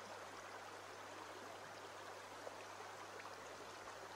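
Faint, steady rush and babble of a shallow stream flowing over a pebbly bed, with a low steady hum underneath.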